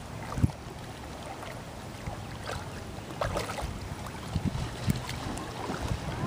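Shallow lake water sloshing and splashing as a Great Dane wades and dips its head into the water, in irregular small splashes. Low wind rumble on the microphone underneath.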